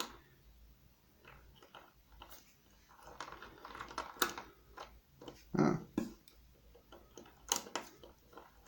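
Scattered small metal clicks and scrapes as tools work the tailpiece off a door lock cylinder, with a few sharper clicks and a short dull knock about halfway through.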